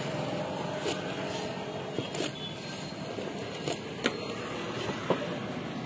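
A large knife cutting a pizza on a foil paper plate: about half a dozen sharp, irregular clicks as the blade comes down through the crust onto the plate. Steady road-traffic noise runs underneath.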